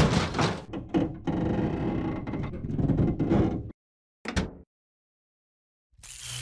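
Cartoon sound effects of a car door lock being jimmied with a rod: clicking and metallic rattling for a couple of seconds, then a single short sound. After a silent gap, a new sound starts near the end as stripped wires are touched together to hotwire the car.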